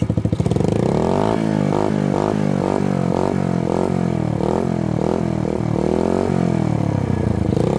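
50cc Dax mini-bike's single-cylinder engine, breathing through a replica Akrapovic silencer with its baffle (dB killer) still fitted, revved up and down in quick throttle blips about twice a second. The sound is quieter than open exhaust and raspier.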